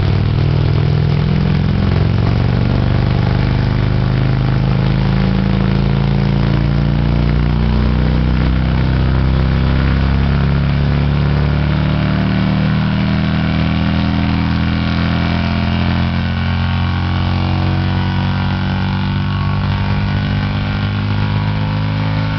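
A Harley-Davidson touring motorcycle's engine runs on a chassis dynamometer during a dyno test, with its rear wheel driving the roller. The engine holds a fairly steady speed, its pitch drifting slightly up and down.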